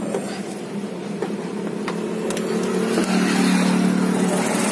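A motor vehicle's engine running nearby with a steady hum that grows louder about three seconds in, with a few light clicks over it.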